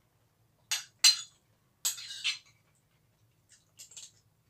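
Eating sounds from a man taking spoonfuls of bamboo-shoot stew from a ceramic bowl: a handful of short, sharp sounds, the loudest about a second in.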